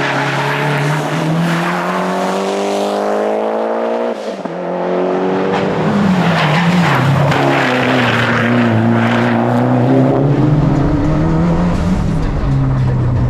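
Mitsubishi Lancer Evolution X rally car's turbocharged four-cylinder engine under hard acceleration: the pitch climbs for about four seconds, breaks off sharply at a gear change or lift, then rises and falls as the driver works the throttle, settling toward the end.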